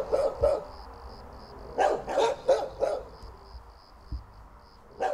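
A dog barking in short groups: a couple of barks at the start, four in quick succession about two seconds in, and another near the end. Under the barks an insect chirps steadily in high, even pulses, about two to three a second.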